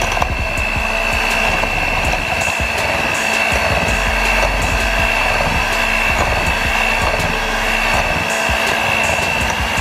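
Electric hand mixer running steadily with a high whine, its beaters creaming sugar and butter in a glass bowl.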